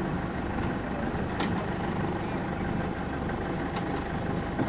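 Boat engine idling with a steady low hum, and a single short click about a second and a half in.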